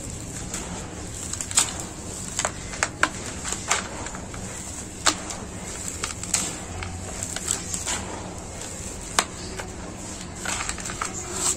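Clumps of dry, gravelly dirt are dropped and crumble onto a pile of dusty gravel. The pebbles give sharp clicks and short crackles at irregular intervals, over a steady low hum.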